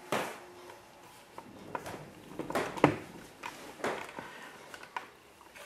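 Handling noise from a handheld camera being turned around: a few scattered knocks and rustles, with one louder knock about three seconds in.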